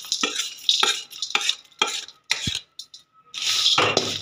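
Roasted nuts and raisins scraped out of the pan with a wooden spatula and tipped into a steel tray: a run of sharp knocks and rattles, about two a second, then a steadier rustling noise near the end.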